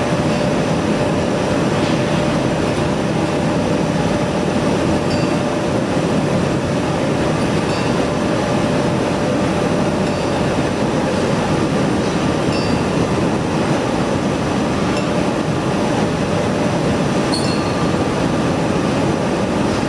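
Steady drone of heavy industrial machinery with a constant tone running through it, and a few faint metallic clinks now and then.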